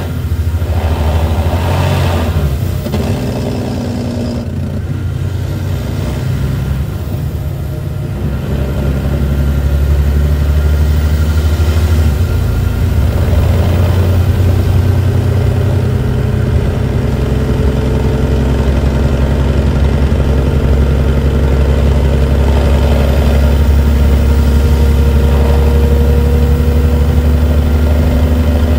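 Detroit Diesel Series 60 inline-six diesel of a 2008 MCI D4500CT coach running, on an engine with a known exhaust leak. The sound is uneven for the first several seconds, then grows louder about ten seconds in and holds a steady low drone.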